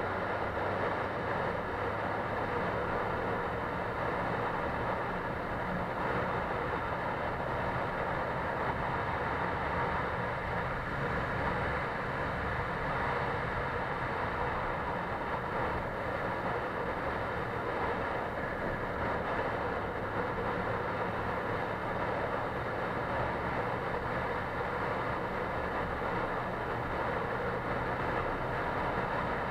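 Motorcycle cruising at a steady speed: the engine running evenly under wind and road noise, with no change in pace.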